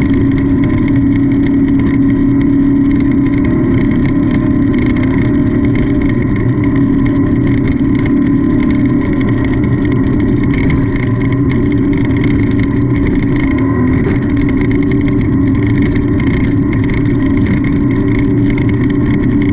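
Off-road race car engine running hard and steady, its pitch shifting slightly now and then as the throttle varies.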